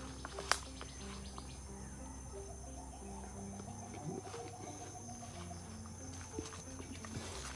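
Steady high-pitched insect calls, crickets or similar, over slow background music of short held low notes. A sharp click about half a second in, and a faint trill in the middle.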